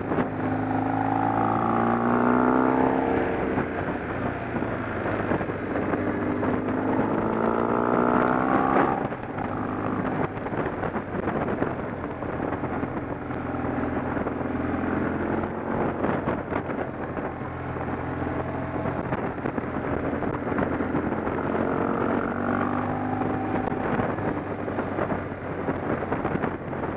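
A vehicle engine running steadily, its pitch rising as it speeds up and then dropping back, twice strongly in the first nine seconds and more weakly later, under a noisy rushing haze.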